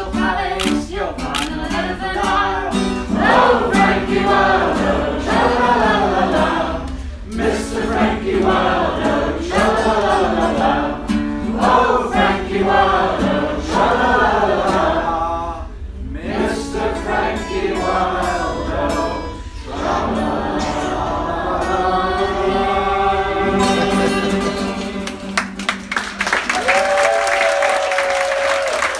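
A group of people singing together to an acoustic guitar. The song ends about 26 seconds in and gives way to applause.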